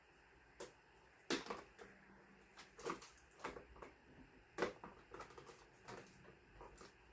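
Scattered clicks and knocks of hard plastic fan parts being handled and fitted together while the table fan is assembled, several sharp taps a second or so apart.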